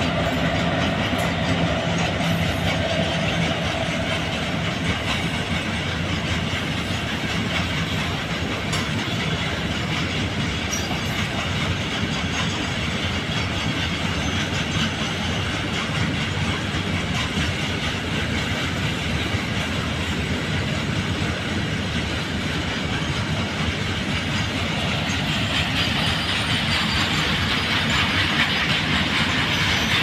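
Indian Railways WAG-5HB electric locomotive passing, with a steady low hum in the first few seconds, followed by its long train of BOXNHL open wagons rolling slowly past in a continuous rumble of wheels on rail. The rolling noise grows brighter and hissier near the end.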